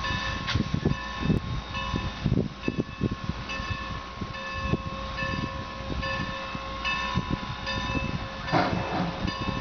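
Steam locomotive No. 475's bell ringing in a steady, even rhythm as the train starts away from a stop, over a low rumble from the train. The ringing stops near the end.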